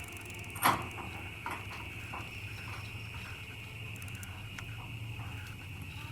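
Bicycle ridden at night: a sharp click or clack about a second in, then scattered fainter ticks, over a steady high-pitched hum and a low rumble.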